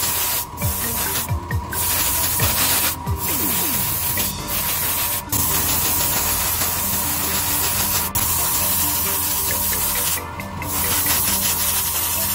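Airbrush spraying paint onto small plastic model parts: a steady hiss that breaks off briefly about six times.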